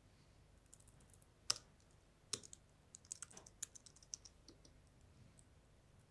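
Faint typing on a computer keyboard: scattered single keystrokes, with a quick run of key presses a little past the middle.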